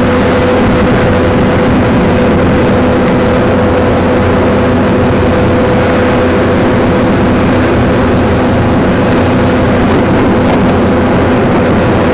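Jet engines of a Boeing 747-200 running on the runway ahead of takeoff: a loud, steady rumble with an even droning tone through it.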